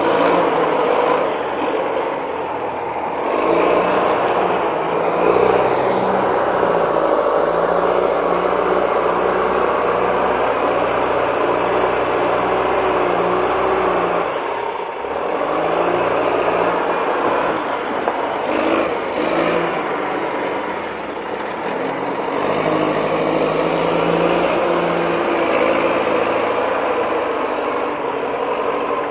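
1971 Caterpillar 950 wheel loader's diesel engine working under load, its pitch rising and falling as the machine digs into a gravel pile and raises a loaded bucket. The engine drops briefly about halfway, then picks up again.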